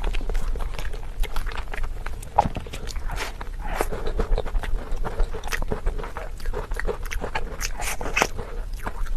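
Close-miked eating: a dense, irregular run of crunchy bites and chewing.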